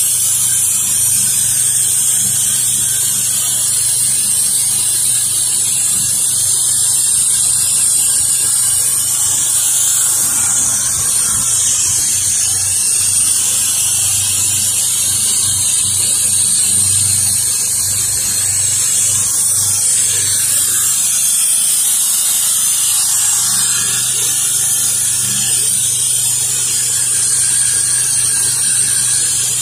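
Pressure washer spraying water at high pressure onto a concrete driveway, rinsing it down, with a steady hiss over the machine's low, even engine hum.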